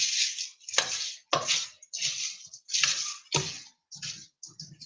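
Cornflakes crunching and rustling as they are folded into melted chocolate in a glass bowl, in about eight short strokes roughly every half second, each starting with a click against the glass.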